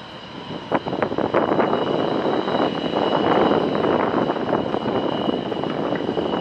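Antonov An-124's four Progress D-18T turbofan engines running at taxi power: an uneven rushing rumble with a steady high whine over it.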